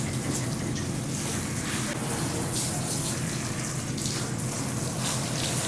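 Shower water running steadily, spraying onto and rinsing a Shiba Inu's coat.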